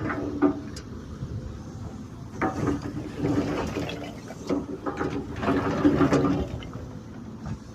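Diesel earthmoving machine at work: the engine and hydraulics swell under load several times, with sharp metal clanks and knocks.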